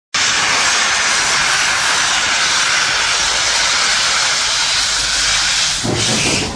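Steam venting under pressure from a metal vessel with a loud, steady hiss; a lower rumble joins it just before the end.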